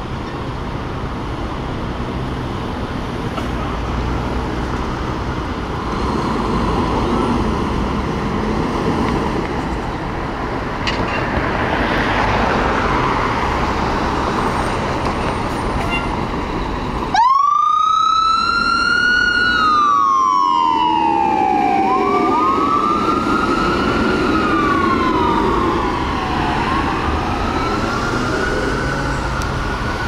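A 2022 Pierce Enforcer fire engine's diesel running as it pulls out of the station. About seventeen seconds in its siren comes on loudly, a wail that rises quickly and falls slowly, repeated every few seconds as the truck drives off.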